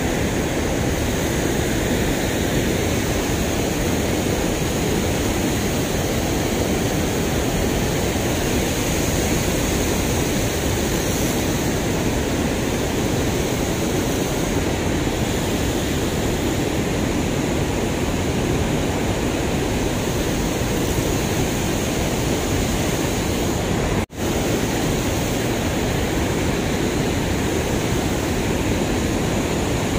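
Steady rushing of turbulent water churning white below a dam's outflow. It drops out for an instant about two-thirds of the way through.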